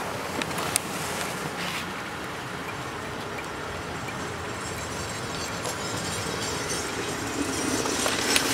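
1999 Volkswagen Passat B5's engine idling steadily after a start-up, heard from outside the car, with a couple of light clicks about a second in.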